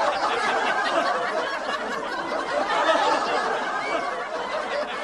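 Several people laughing together, a dense tangle of overlapping laughs that dies away near the end.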